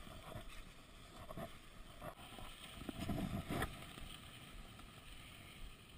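Cross-country skis sliding in groomed classic tracks, with a short stroke about once a second as the poles plant and the skis kick on the packed snow.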